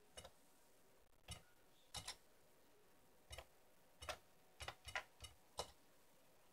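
Keystrokes on a VZ-series home computer keyboard as a BASIC line is typed: about ten short clicks at an uneven typing pace, some in quick pairs.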